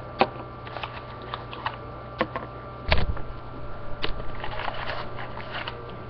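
Small plastic food-coloring bottles clicking and clattering as they are picked out and handled. There is one heavier knock about three seconds in and a quick run of lighter clicks near the end.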